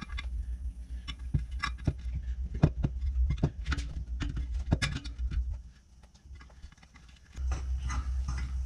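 Irregular metallic clicks and taps of a hand tool and wire spokes as the spokes are worked loose at the rim of a Yamaha RD50 moped's spoked wheel, over a low steady hum. The clicking stops a little past halfway through.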